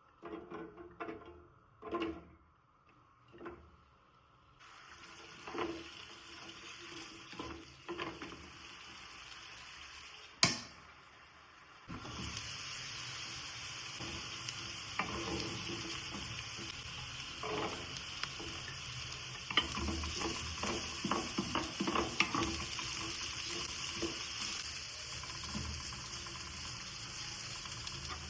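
Kitchen work: utensils and dishes knocking and clinking, then a steady hiss starts about twelve seconds in, with more clatter over it.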